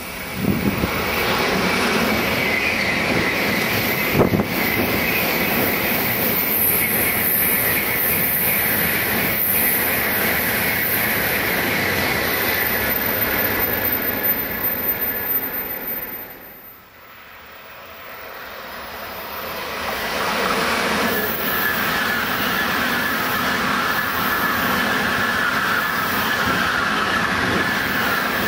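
Tokaido Shinkansen high-speed trains passing at speed: a steady rush of wheel and air noise that dies away around the middle, then builds again as another train approaches and passes near the end.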